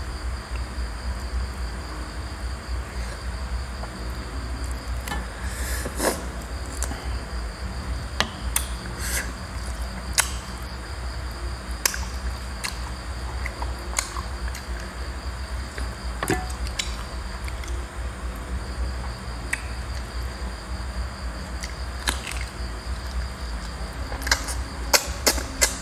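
Eating roast chicken by hand: sharp clicks and cracks of chewing and pulling at chicken bones every second or two, with a quick run of them near the end. Underneath are a steady low hum and a constant high insect trill.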